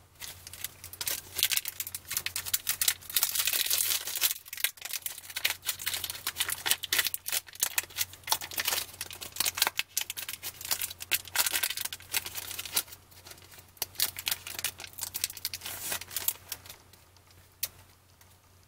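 A shiny foil trading-card pack wrapper being torn open and crinkled by hand: a dense run of crackles and rips that eases off near the end.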